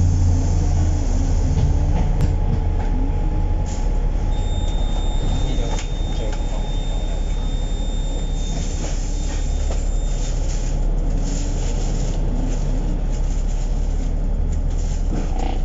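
Bus running, heard from inside the cabin: a steady low engine and road rumble with the body and fittings rattling. A thin high whine sounds from about four to ten seconds in.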